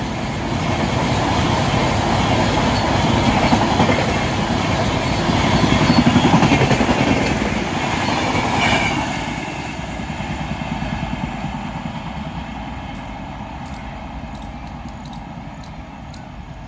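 Passenger express train running past, its wheels clattering over the rail joints. The noise fades steadily from about nine seconds in, leaving a run of light regular clicks near the end.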